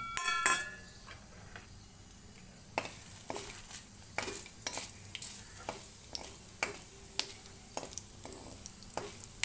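Steel spoon stirring and scraping dried red chillies and coriander seeds being lightly fried in a little oil in a kadhai, over a faint steady sizzle. A short metallic ring at the start as the spoon meets the pan, then repeated sharp scrapes from about three seconds in.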